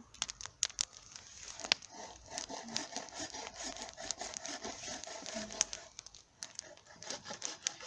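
Wood campfire crackling, with sharp irregular snaps and pops over a steady rustling hiss.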